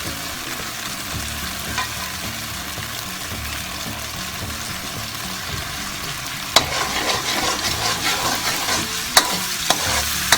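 Butter-and-ketchup buffalo sauce sizzling in a pan that is too hot. About six and a half seconds in the sizzle gets louder and more spitting, with a few sharp clicks, as the sauce starts spattering.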